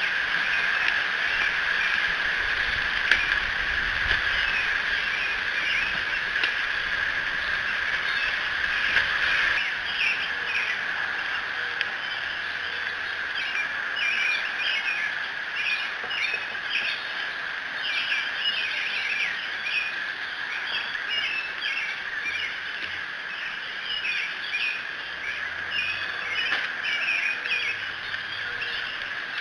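Many songbirds chirping and singing in an early-morning chorus, becoming dense from about ten seconds in, over a steady high-pitched hum. There is a low rumble in the first several seconds.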